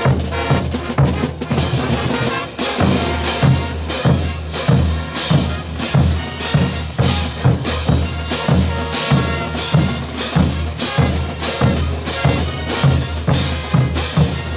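Bolivian brass band playing a morenada: bass drum and cymbals keep a steady beat under sustained brass.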